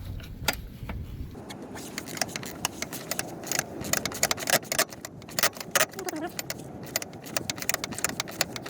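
1/4-inch socket ratchet on an extension clicking in quick, irregular runs as it backs out a 13 mm battery hold-down bolt. A low rumble underneath stops about a second and a half in.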